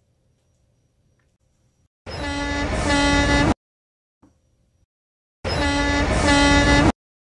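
Two blasts of a diesel locomotive horn sound effect from Thomas & Friends, each about a second and a half long, with a small step up in pitch partway through each blast.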